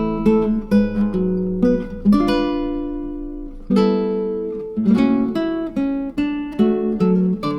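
Background music: acoustic guitar, notes and chords plucked and strummed one after another, each ringing out and fading.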